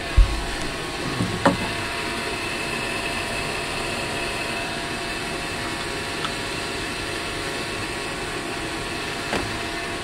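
Engine-compartment bilge blower fan running steadily, with a couple of short knocks of handling in the first two seconds.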